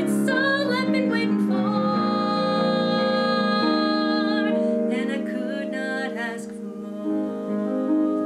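A woman's solo singing voice with vibrato over instrumental accompaniment. She holds one long note for about two and a half seconds from about two seconds in, sings a few shorter phrases, and stops about six and a half seconds in, leaving the accompaniment playing alone.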